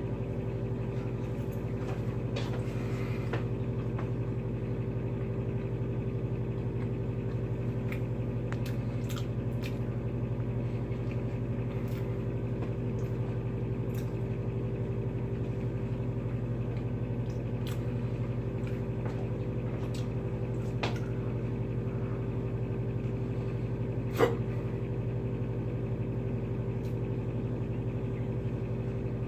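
Steady low hum with a few faint clicks scattered through it, and one sharper click about two-thirds of the way through.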